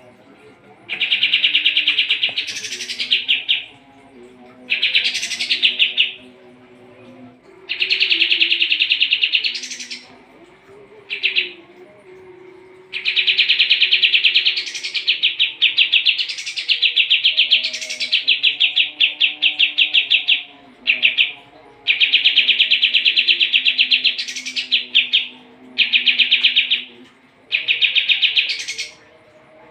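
White-shouldered triller (kapas tembak) singing: a run of loud, rapid rattling trills, each one to three seconds long and often ending in a sharp rising note, repeated with short pauses between.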